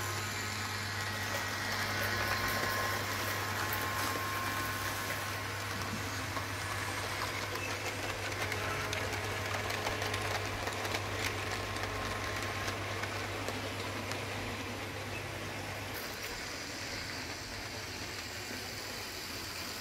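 Electric model train running along its track: a Rivarossi model of a German 0-4-4-0 Mallet steam locomotive hauling freight wagons, its electric motor running on freshly replaced brushes and its wheels rolling on the rails. The running noise is steady, and a low hum under it stops near the end.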